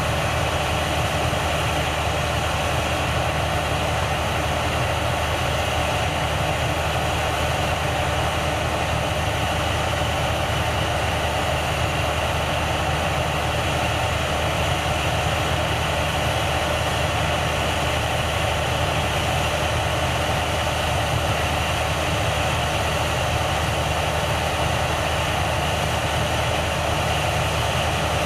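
Heavy farm machinery's diesel engine running at a constant speed: a steady drone with no change in pitch or level.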